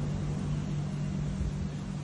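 Steady low machine hum under an even hiss.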